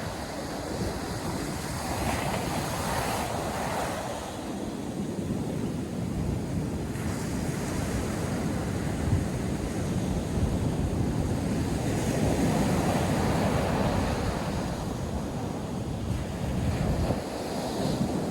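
North Sea surf breaking and washing on a beach, a continuous roar that swells and ebbs every few seconds, with wind buffeting the microphone as low rumbling.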